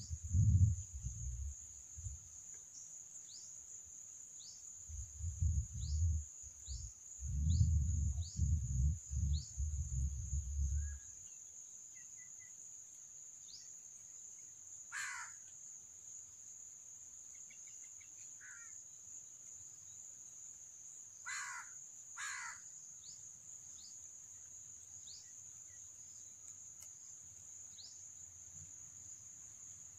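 A crow cawing three times, once about halfway through and twice in quick succession about two-thirds of the way in, over a steady high-pitched insect drone and faint short descending bird chirps. Low rumbling bumps fill roughly the first eleven seconds.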